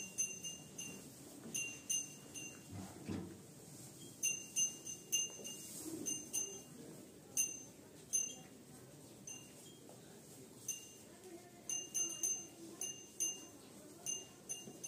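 A small metal cattle bell on a feeding calf's neck ringing in irregular short jingles, single strikes and quick clusters of two or three, each with the same bright ringing pitch, as the animal moves its head while eating.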